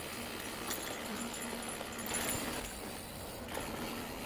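Mountain bike rolling along a rough dirt trail: steady tyre and riding noise with small knocks and rattles from the bike over the bumps.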